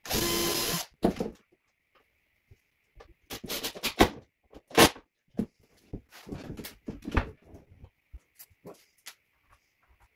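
Cordless drill driving a screw into a drawer runner in one short burst of under a second, followed by knocks and clicks of the drawer and tools being handled.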